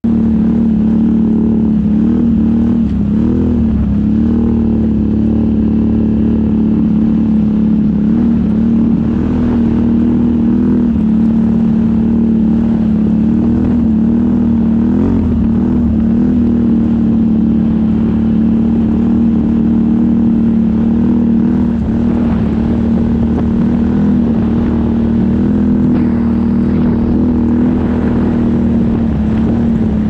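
Can-Am ATV engine running steadily while riding at low, even speed, its drone holding a nearly constant pitch with small rises and dips.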